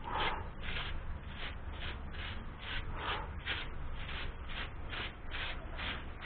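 Rhythmic back-and-forth scraping, about two to three even strokes a second, as of a hand tool being worked during hand-pump repair.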